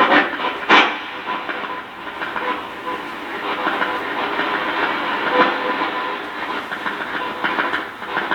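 Spirit box sweeping rapidly through radio frequencies, giving a steady run of choppy, flickering static.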